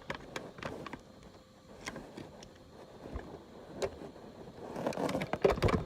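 Scattered plastic clicks and taps from a battery being fitted into a smoke alarm, with a flurry of louder handling clicks near the end.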